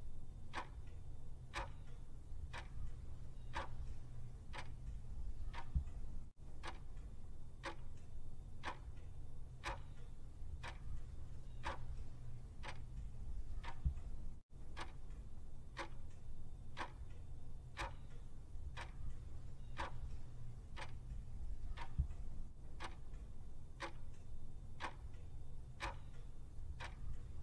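Countdown timer tick sound effect, a clock-like tick about once a second, over a faint steady low hum.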